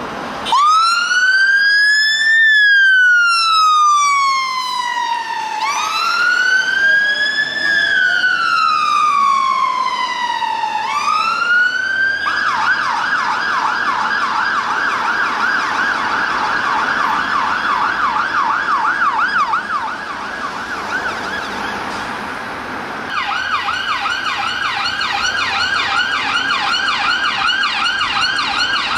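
Fire engine siren starting up on a slow wail that rises and falls, then switching to a fast yelp. Near the end a rapid-response ambulance car's siren comes in loud on a fast yelp.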